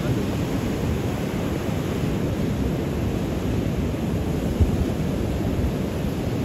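Surf breaking and washing on a beach in a steady rush, with wind buffeting the microphone.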